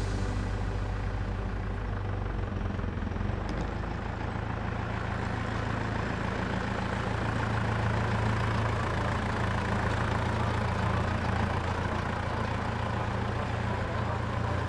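Farm tractor's diesel engine running as it drives up towing a trailer, a steady low hum that grows louder toward the middle as it comes close.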